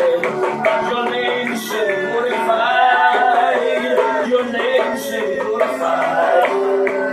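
Slow worship music played on an electronic keyboard, sustained chords under a man's voice singing long, gliding lines.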